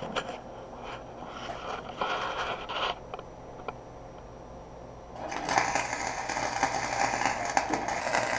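Arc welding on a motorcycle frame: the welder crackles steadily for about three seconds, starting about five seconds in. Before that come shorter bursts of scraping and clatter.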